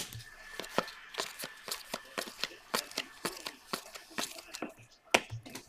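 Football trading cards being flipped through by hand: a quick, uneven run of light clicks and slaps as the cards slide off one another.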